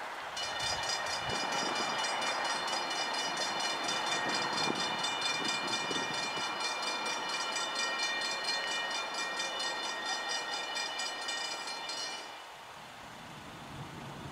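Safetran railroad grade-crossing bell ringing in fast, even strokes, cutting off about twelve seconds in, over the steady noise of an approaching train.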